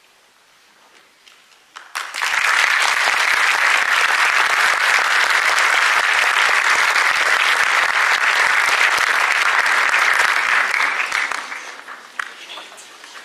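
Audience applause for a curtain call. It breaks out about two seconds in after a brief hush, holds steady for several seconds and dies away near the end.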